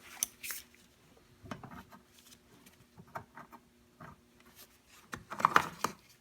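Light clicks and rubbing as the plastic interior door handle of a 1989 Toyota pickup and its linkage wire are handled and lined up, with a louder cluster of clicks near the end.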